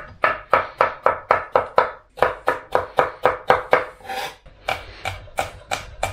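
Chef's knife chopping carrot, celery and red chilli on a wooden chopping board: quick, even strokes about five or six a second, with a short break about two seconds in.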